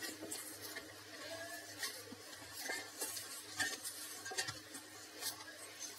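Hands kneading a stiff urad dal and wheat flour dough in a stainless steel bowl: faint, irregular soft knocks and rubbing of the dough and knuckles against the metal.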